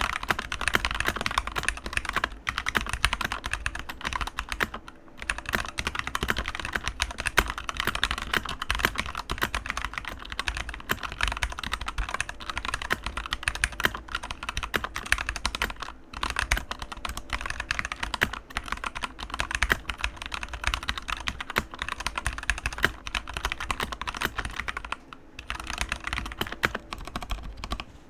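Keychron K2 mechanical keyboard with Gateron red linear switches being typed on fast and continuously, a steady clatter of keystrokes broken by a few brief pauses.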